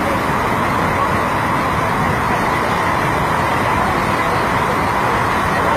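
Rushing floodwater: a loud, steady roar with no breaks.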